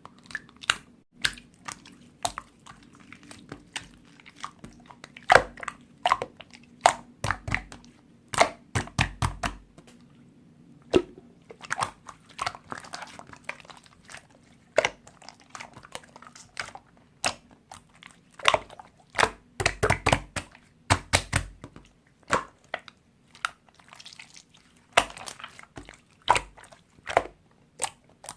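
Slime being squeezed and poked by hand: an irregular string of sharp pops and clicks, with heavier squelches around nine and twenty seconds in.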